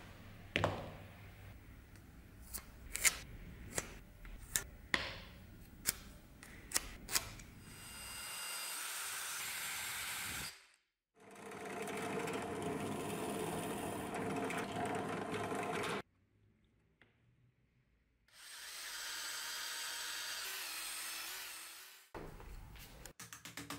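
A few sharp taps and knocks, then a drill boring into moose antler in three runs of a few seconds each, with short stops between them. The bit whines steadily as it grinds through the antler, first on a drill press and then from a handheld drill hollowing out the handle blank.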